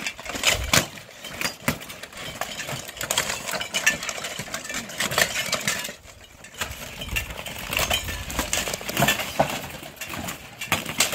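Steel plate armor clanking and scraping as armored fighters grapple, with repeated sharp metal knocks of plate against plate. It goes briefly quieter about six seconds in.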